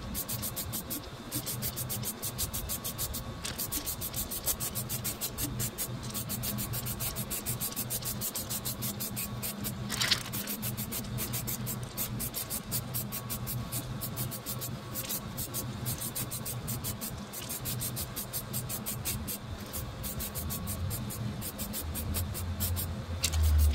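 Aerosol can of DEI high-temperature silicone coating spraying in many short hissing bursts, a few a second, over a faint steady hum. A louder low rumble comes near the end.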